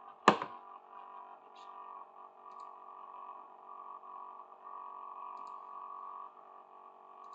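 One sharp click about a third of a second in, then a steady electrical hum with a few faint ticks.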